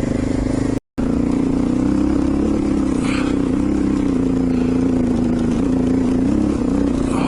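Honda XR650 single-cylinder four-stroke dirt bike engine running at a steady, even pitch as the bike crawls along at a snail's pace, with a split-second dropout in the audio about a second in.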